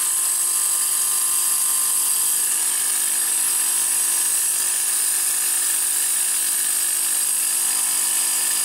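Compressed-air blower hissing steadily from a flexible nozzle beside the chisel, over the steady hum of a hollow chisel morticer's motor running with the chisel not yet cutting.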